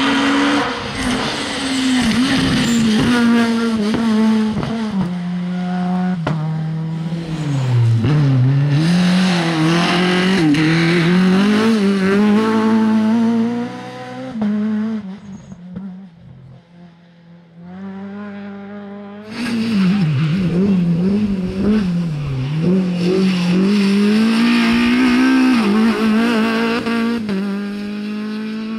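Rally car engines at full throttle: a Renault Mégane Maxi kit car's engine revving high and dropping repeatedly through downshifts and corners, then another rally car revving hard through gear changes after a quieter lull in the middle.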